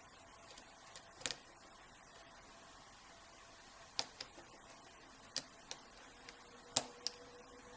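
Hook pick and tension wrench working the pin stack of an Iseo euro cylinder: about ten light, sharp clicks at irregular intervals as the pins are lifted and set.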